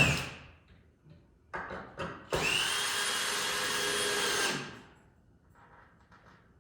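Power drill driving deck screws into a wood top plate at an angle. A previous run dies away at the start, then come two short blips about 1.5 and 2 seconds in, then a steady run of about two and a half seconds that stops.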